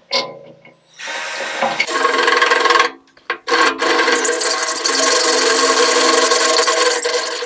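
Hand-held power drill boring a bolt hole through the hard steel lip of a tractor loader bucket, the bit grinding into the metal. It starts about a second in, stops briefly around three seconds, then runs steadily.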